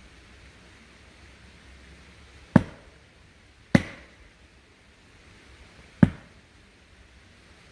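Three sharp blows struck at the trunk of an ash tree being felled, each with a short ringing tail: the first about two and a half seconds in, the next a second later, the last two seconds after that.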